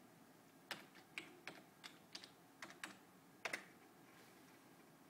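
Faint, irregular keystrokes on a computer keyboard: about nine taps over some three seconds, ending in a quick pair.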